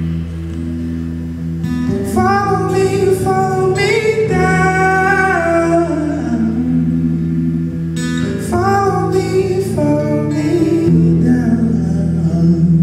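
Live music: acoustic guitar and keyboard holding steady low chords, with a man singing high, drawn-out phrases over them about two seconds in and again about eight seconds in.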